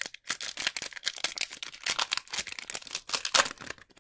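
Plastic foil wrapper of a hockey card pack crinkling and crackling in the hands as it is torn open, a dense run of crackles that is loudest near the end.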